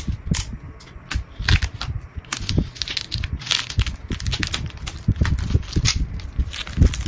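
Plastic shrink-wrap crackling and crinkling as it is slit with a utility knife and peeled off a cardboard retail box, a dense run of irregular sharp crackles and rustles.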